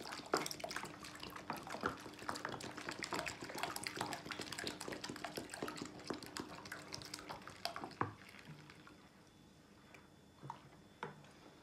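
Water glugging and splashing out of an upturned plastic water bottle into a bowl of foamy dish-soap paste, diluting it into liquid dish soap. The pouring stops about eight seconds in, leaving only a few faint clicks.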